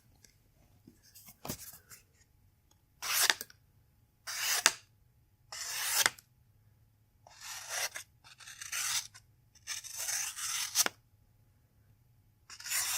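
Very sharp VG10 stainless steel folding-knife blade slicing through paper, about seven short hissing cuts with short pauses between them, showing how keen the edge is.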